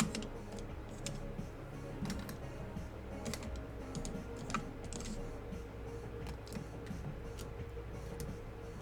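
Irregular clicking of typing on a computer keyboard, over quiet background music.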